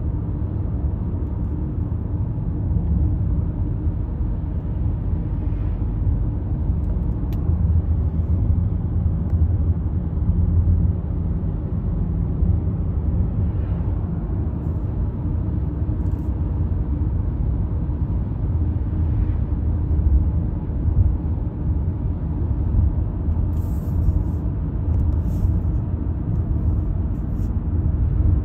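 Steady low rumble of a car driving at road speed, heard from inside the cabin: tyre and engine drone.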